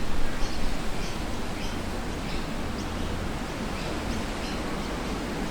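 Steady outdoor background hiss, with faint short high chirps repeating about every two-thirds of a second.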